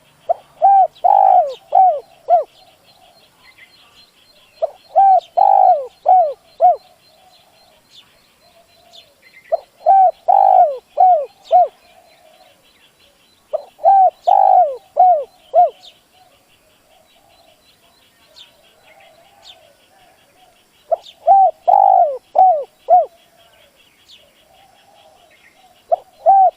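Spotted dove cooing: loud phrases of five or six rounded notes, repeated every four to five seconds with one longer pause midway. A faint, fast, high chirring runs underneath.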